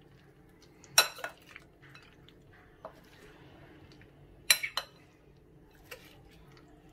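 Metal spoons clinking against a glass bowl while tossing a chopped chickpea and vegetable salad: a sharp clink about a second in, a quick cluster of clinks near the middle, and soft scraping and stirring between.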